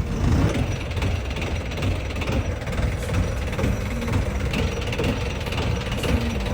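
An engine running with a steady, rough low rumble.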